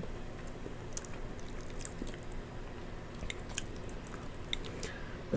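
A person chewing a mouthful of creamy chicken Alfredo with broccoli, with quiet, scattered wet mouth clicks and smacks.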